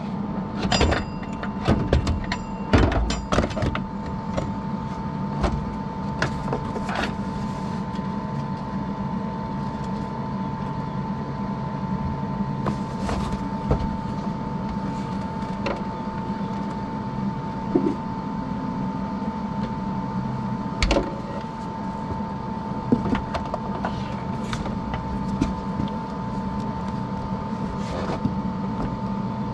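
Arc welding a nut onto the stub of a snapped bolt, inside the nut's hole, so the bolt can be turned out. A steady crackling buzz with a constant high whine and a low hum underneath, broken by scattered sharp ticks and pops.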